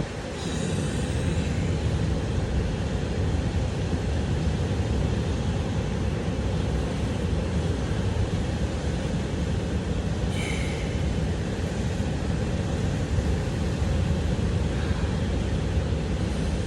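Ocean surf breaking, a steady low rumble of waves, with two faint short high sounds, one about half a second in and one about ten seconds in.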